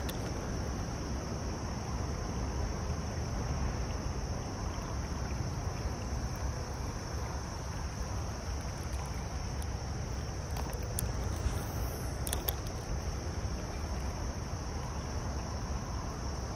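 Steady rush of creek water with a continuous high insect buzz over it, and a few faint clicks about two thirds of the way through.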